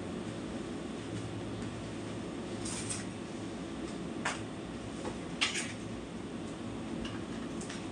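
A few short knocks and clatters of kitchen items being handled at a counter, the loudest about five and a half seconds in, over a steady low hum.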